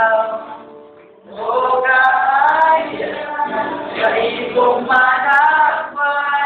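Music with singing voices; the singing stops briefly about a second in, then comes back.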